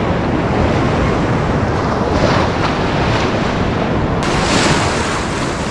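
Sea surf surging and splashing around a person wading waist-deep, with wind buffeting the microphone. A louder rush of breaking water comes about four seconds in.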